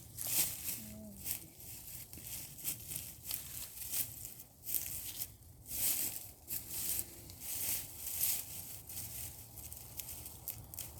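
Wood chips and soil rustling and crunching as a sweet potato bed is dug through, in irregular scrapes and crackles with a few louder strokes.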